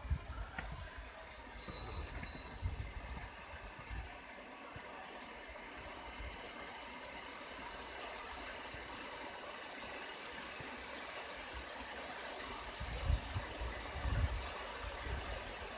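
Fireworks heard from afar: a sharp crack about half a second in, a short wavering whistle near two seconds, and dull low booms, with two more near the end, over a steady hiss.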